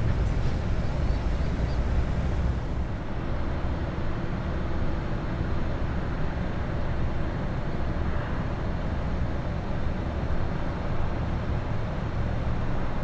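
Steady low rumble with a faint hum, the high hiss falling away about three seconds in.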